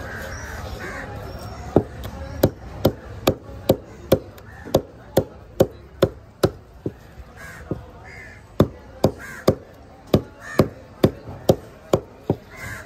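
Large fish knife chopping a tuna loin into cubes on a thick wooden block: a steady run of sharp chops, about two to three a second, with a short pause about halfway through.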